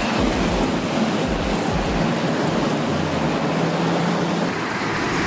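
Large wood shredder working, a dense steady grinding noise with low pulsing, and a low engine hum that holds for about two seconds in the middle.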